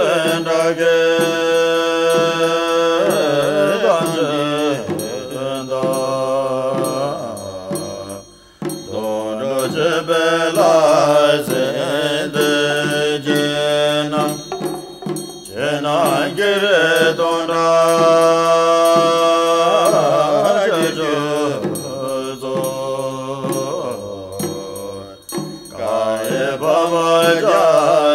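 A Buddhist mantra sung in a melodic, repeating chant over musical backing, its phrases broken by short pauses.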